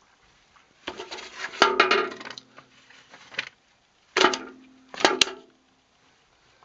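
A clatter of knocks and clinks in two bursts, a dense cluster early and then three separate strikes, some leaving a brief low ringing.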